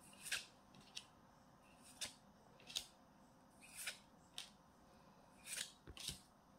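Trading cards being leafed through one at a time, each card slid off the stack with a short, soft swish of card on card; about eight swishes at irregular intervals.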